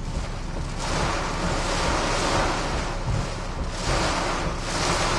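Hurricane wind and driving rain, a loud steady rushing with a deep rumble underneath, heard from inside a vehicle. It swells about a second in, eases briefly, and surges again near the end.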